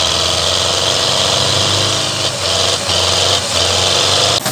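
Belarus tractor's four-cylinder diesel engine running hard as it pulls a loaded sugarcane trolley, its note steady with a few brief dips.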